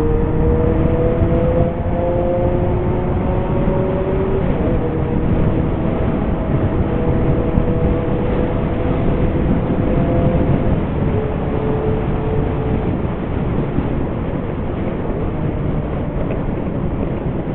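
Kawasaki Zephyr 750's air-cooled inline-four running through an MRS exhaust fitted with a louder inner silencer, under way: the engine note climbs slowly as the bike accelerates, drops at a gear change about four seconds in, climbs again, then fades under steady wind noise after about ten seconds.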